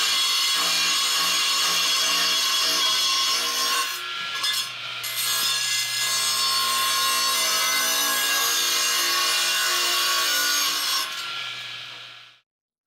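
Radial arm saw motor running with its cutting head shaving across the split face of a half ash log, a steady hum under a harsh scraping hiss. Near the end it is switched off and spins down to silence.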